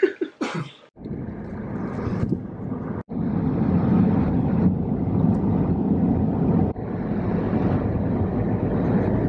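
A car driving along a country road, with steady engine and tyre rumble heard from inside the cabin. The sound breaks off abruptly about three seconds in and again near seven seconds, then picks up again.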